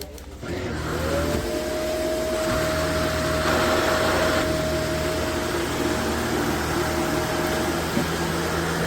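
Upright vacuum cleaner switched on: about half a second in its motor starts and the whine rises quickly to a steady pitch. It then keeps running steadily.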